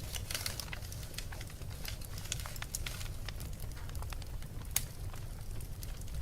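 Wood fire burning in a fireplace: a steady low rumble with frequent small crackles and pops, the loudest pop a little before the end.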